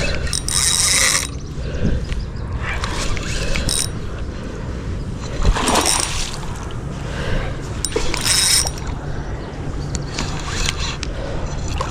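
Spinning fishing reel being cranked in short bursts of ratcheting clicks, over a steady low rumble.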